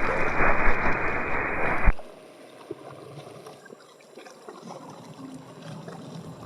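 Air-band radio receiving the tower frequency: a keyed transmission with no clear words comes through as a loud hiss. It cuts off with a click about two seconds in, leaving only faint background noise.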